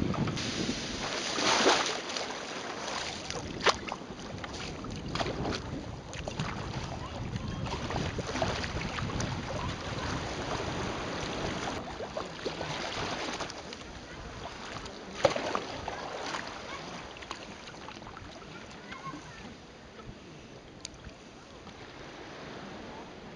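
Water splashing and lapping around a sea kayak as it is paddled through light chop, with wind buffeting the microphone and a few sharp knocks. It gets quieter in the second half.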